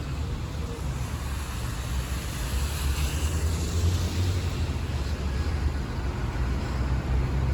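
Road traffic on a wet street: steady tyre hiss and low engine rumble, swelling as a vehicle passes about three seconds in.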